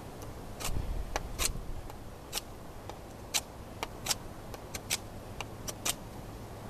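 Schrade SCHF10 fixed-blade knife shaving curls off a wooden stick to make a feather stick: short, sharp scraping strokes at uneven intervals, about two a second. Its edge is no longer very sharp.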